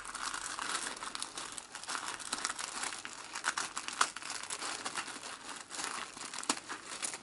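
Tissue paper crinkling and rustling as fingers pick at and lift the sticker seal holding the wrapping closed, with many small sharp crackles throughout.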